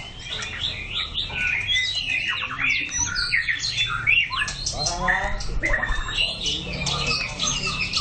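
White-rumped shama singing a fast, unbroken run of varied phrases: clear whistles, sweeping glides and rapid rattling notes.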